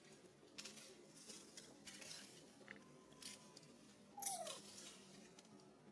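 Faint scuffling and rustling on leaf-strewn stone steps. About four seconds in comes a sudden scuffle and a short squeal falling in pitch from a baby monkey as an adult monkey mouths it.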